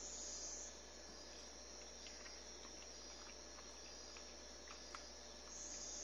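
Faint, steady high-pitched chirring of insects, with a low steady hum beneath.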